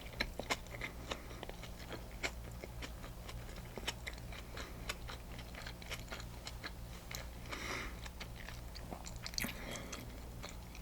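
Close-miked chewing and biting of a turkey and cheese sandwich on sourdough bread: many small crunches and wet mouth clicks, over a steady low electrical hum.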